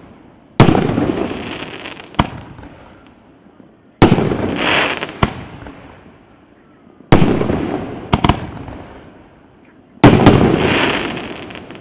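19-shot, 2-inch consumer firework cake («Громовержец» C9008) firing: four loud bangs about three seconds apart, each fading away slowly, with a sharp crack about a second after each of the first three.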